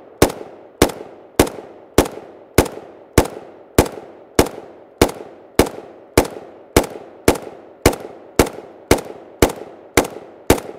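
FN FNC 5.56×45 mm NATO rifle firing a steady string of single shots, about one every 0.6 seconds, each with a short echoing tail. The shots come without a stoppage: the rifle is feeding and cycling reliably from the magazine.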